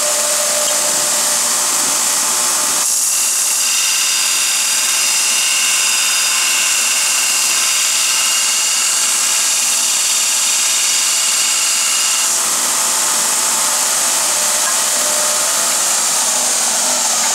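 Small Kalamazoo belt sander running steadily. From about three seconds in to about twelve, a soft-steel lathe threading tool bit is held against the belt to grind its top rake angle, adding a higher grinding tone over the belt's hiss.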